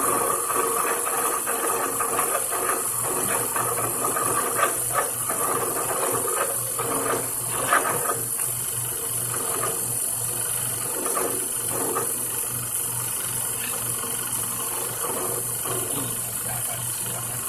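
TU-2A CNC training lathe running a cut: a steady motor and spindle hum and whine with irregular clicking and rattling throughout.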